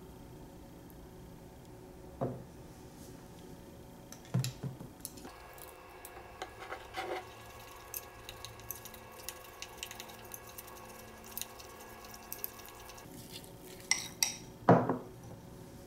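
Chopsticks stirring thick sesame paste in a porcelain bowl, clicking and scraping against the bowl's side in irregular taps, with a few louder knocks, the loudest near the end.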